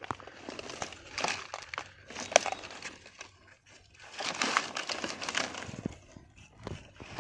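Curved hand blade cutting and scraping into the fibrous white heart of a palmyra palm: irregular crunching strokes and crackles, with a sharp click about two and a half seconds in and a busier run of strokes past the middle.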